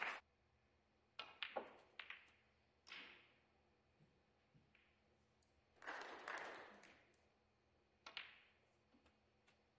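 Snooker balls clacking on a quiet table. A cue tip strikes the cue ball, which knocks sharply into the red balls, in a cluster of clicks early on. A second cue-ball strike into the pack of reds comes about eight seconds in, followed by small ticks of balls touching. A brief stretch of hiss-like noise comes about six seconds in.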